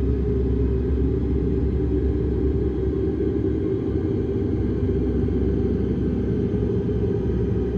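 Horror ambience drone: a steady, dark low rumble with faint held tones above it.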